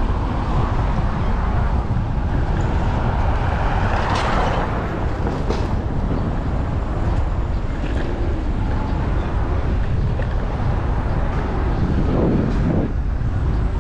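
Wind buffeting an action camera's microphone on a moving electric scooter, a steady rumble, with city street traffic behind it that swells about four seconds in.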